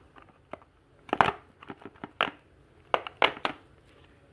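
Crackling and clicking of a plastic toy package as its pull tab is worked open, in several short sharp bursts.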